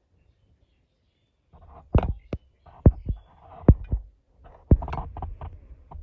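A pig at a stake-and-tyre trap making short, low thumping sounds: about eight sharp thumps and knocks at irregular intervals, starting about a second and a half in, with scuffling between them.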